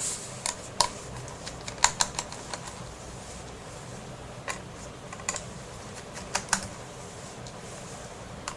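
Irregular small sharp clicks and ticks of a screwdriver working the screws on the underside of a netbook's plastic base.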